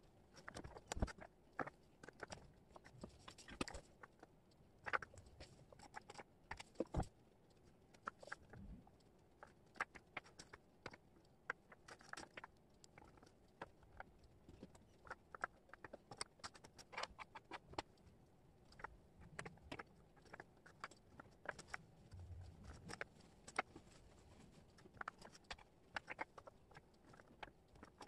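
Wooden jigsaw puzzle pieces clicking and tapping as they are picked up, shuffled and set down on a cork board: many light, irregular clicks with soft sliding between them.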